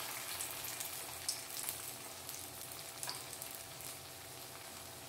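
Batter-coated prawn frying in hot coconut oil in a shallow pan: a steady sizzle with scattered crackles, slowly quieting.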